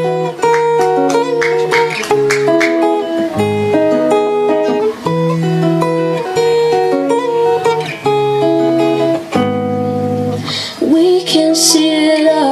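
A woman's original song on guitar: a melodic guitar passage over a steady bass line, with a short strummed patch early on, and her singing voice coming back in near the end.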